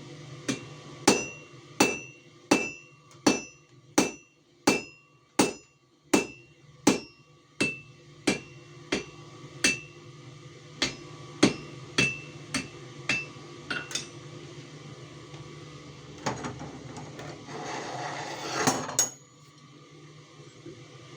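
Blacksmith's hammer striking metal on an anvil while forging a leaf: about twenty evenly paced, ringing blows, roughly one and a half a second, which stop about two-thirds of the way through. Then a rushing hiss lasts a few seconds and cuts off suddenly.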